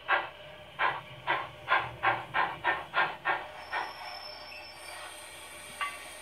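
Sound-fitted Hornby Princess Class model steam locomotive playing recorded steam exhaust chuffs through its Zimo MX648 decoder and sugar cube speaker: about ten beats that quicken and then fade out, followed by a thin steam hiss.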